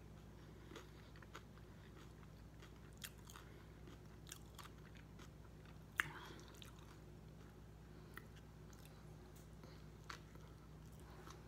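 Faint mouth sounds of a person chewing and biting into a soft, untoasted Subway cold cut combo sandwich, with scattered small clicks and one sharper click about halfway through.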